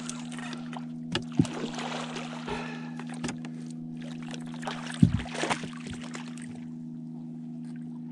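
Hooked channel catfish splashing and thrashing at the water's surface beside the boat, in three bouts of splashing, with a sharp knock about a second and a half in and another about five seconds in. A steady low hum runs underneath.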